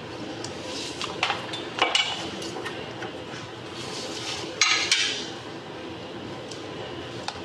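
Scattered light metallic clinks and knocks over a low steady background, the loudest pair of clanks about four and a half seconds in.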